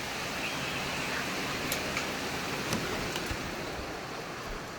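Heavy rain heard from inside a house, a steady hiss that is just as loud indoors, with a few faint sharp ticks.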